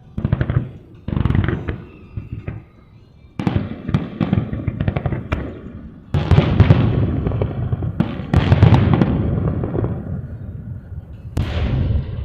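Aerial fireworks shells bursting: about six deep booms, each rumbling away over a second or two, with a quick run of sharp crackles in between.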